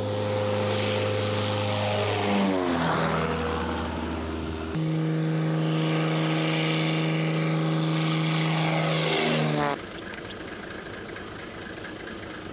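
Propeller aircraft droning as they fly past, the engine pitch dropping as each goes by. The sound changes suddenly about five seconds in and falls away sharply near ten seconds, leaving a quieter steady hum.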